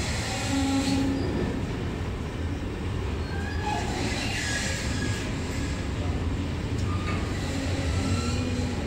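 Intermodal freight train of pocket wagons carrying semi-trailers rolling past at steady speed: a continuous rumble of wheels on rail, with short squealing tones from the wheels now and then.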